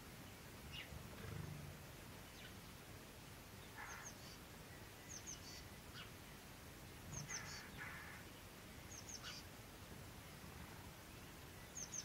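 Faint calls of small garden birds: short, high, paired chirps that recur every second or two, with a few lower notes between them. A soft low thump comes about a second in.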